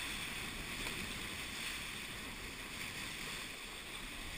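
Steady rush of water and spray along a Hobie 16 catamaran's hull under sail, mixed with wind on the microphone.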